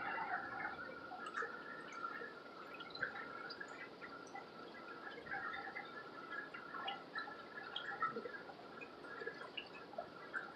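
Faint, irregular dripping and small bubble pops from aerated aquarium water, with a thin, broken hum under them.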